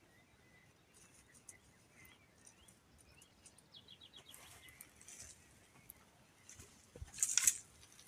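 Faint bird chirping, with a short rapid trill of chirps about four seconds in. Near the end a hoe strikes the garden soil with a dull thump and scrapes through it.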